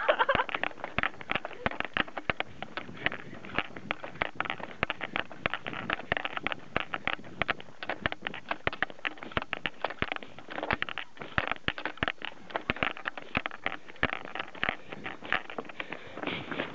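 Several people running on a paved road, their shoes slapping in quick, irregular steps, several a second.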